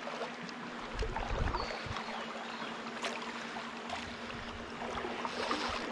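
Shallow river current running over rocks: a steady, even rush of water. There are a few low bumps between one and two seconds in.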